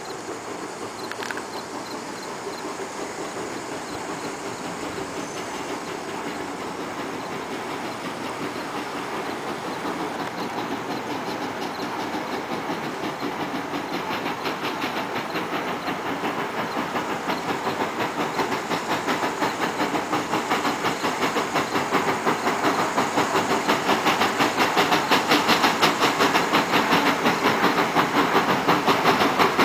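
Steam locomotive under way with a passenger train, its exhaust beating out a steady rhythmic chuff that grows louder as it approaches.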